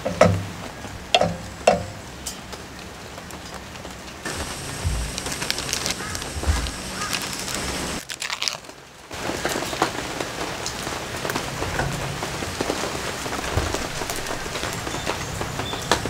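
Heavy rain falling steadily on a tarp, a constant hiss with scattered drop clicks. In the first two seconds there are three sharp knocks as a wooden spoon stirs jam in a small aluminium pot.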